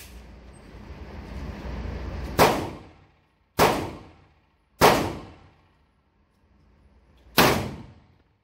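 Four 12-gauge slug shots from a bullpup shotgun, echoing in an indoor range. The first three come a little over a second apart and the fourth follows after a pause of about two and a half seconds, as the gun is fired to see whether it cycles.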